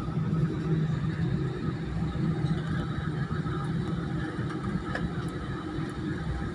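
Steady drone of an airliner's engines and cabin noise, heard inside the cabin while the plane taxis on the ground, with a low hum throughout.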